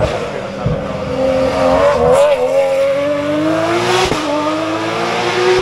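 Rally car engine under hard acceleration: the revs climb, drop at a gear change about two seconds in, then climb steadily again.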